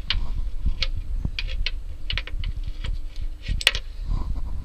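Rope being worked at a boat trailer's bow winch to tie a bank robber's knot: irregular small clicks and rattles of line and metal winch hardware, with handling rustle.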